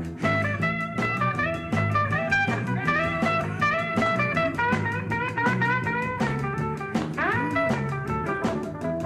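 Country band's instrumental break: a lead guitar plays a quick melodic solo line, with notes bent in pitch about seven seconds in, over bass and drums keeping a steady beat.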